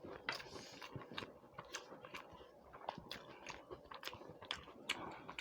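Close-up chewing and biting of food, with soft, irregular mouth clicks and smacks.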